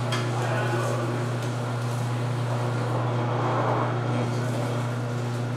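Electric sugarcane juicer running with a steady low motor hum as a stalk of sugarcane is pressed down into its rollers.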